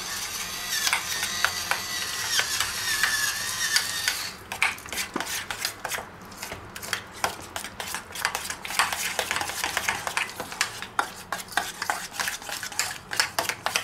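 A stick blender runs with a whining motor for about four seconds, then stops. After that a metal spoon stirs a thick dip in a stainless steel bowl, scraping and clinking against the bowl many times.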